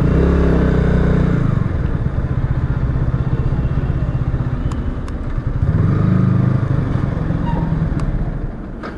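Yamaha R15 V3's single-cylinder engine running in slow traffic. It is revved up briefly twice, once near the start and again about six seconds in, and runs steadily in between.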